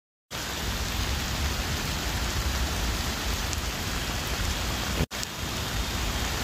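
Heavy rain falling, a steady hiss with a low rumble underneath, starting abruptly a moment in. It cuts out for an instant about five seconds in.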